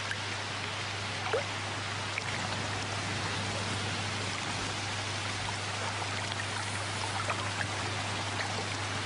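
Water trickling and dripping, a steady hiss with scattered faint drips, over a low steady hum.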